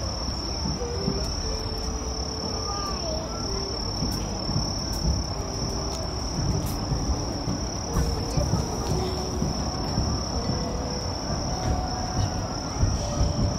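Night insects trilling steadily on one high note, over a low, uneven rumble.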